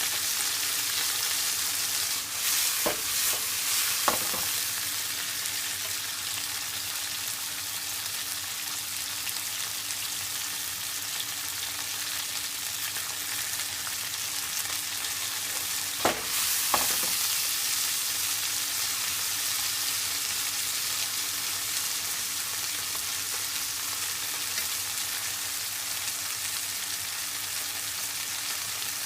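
Stir-fry sizzling steadily in a frying pan. A utensil clacks against the pan a couple of times about three to four seconds in, and again about sixteen seconds in.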